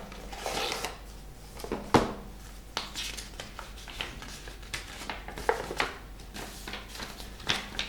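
Hands handling board-game packaging and pieces: a brief rustle, then scattered small clicks and taps of plastic and cardboard, with one sharper click about two seconds in.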